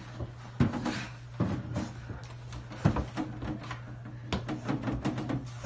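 A heavy wooden shelf unit knocking and bumping as it is carried up a flight of stairs, with several irregular wooden thuds, the loudest about three seconds in.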